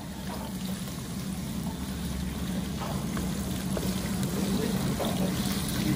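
Sliced pork frying in a wok and being stirred with a wooden spatula, over a steady low hum.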